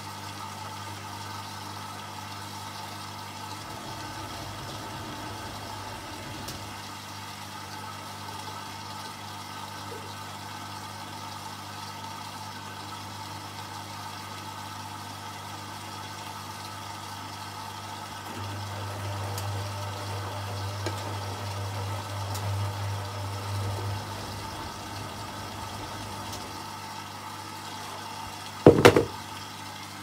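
Hotpoint Liberator 1826 washing machine running through its cotton 40 wash with a steady hum. The hum grows louder for about six seconds past the middle, and there is one short, loud knock near the end.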